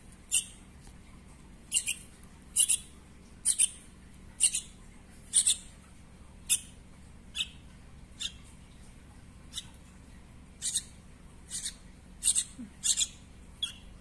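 A fledgling bird making short, high-pitched begging chirps, often in quick pairs, about one every half second to second, as it gapes to be hand-fed.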